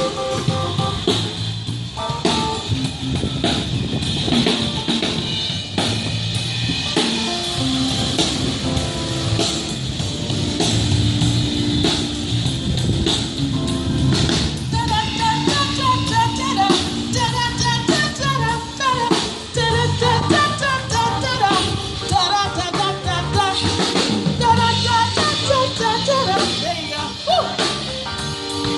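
Music: a song with a drum kit keeping a steady beat, and a voice singing from about halfway through.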